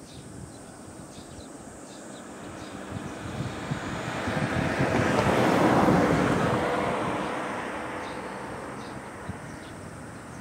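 A passing vehicle: a broad rushing noise that swells over about four seconds, peaks a little past the middle, then fades away.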